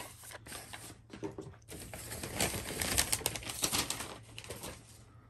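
Packaging being handled and opened by hand: crinkling and rustling with quick clicks and taps, busiest from about two seconds in and dying down near the end.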